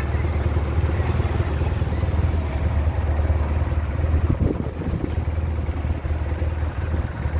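A team car and a motorcycle in a cycling race convoy driving past through a roundabout, engines running, over a steady low rumble.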